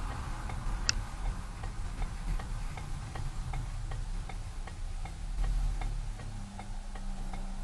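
Car's turn-signal indicator clicking steadily, about three ticks a second, over the low rumble of the road and engine inside the cabin.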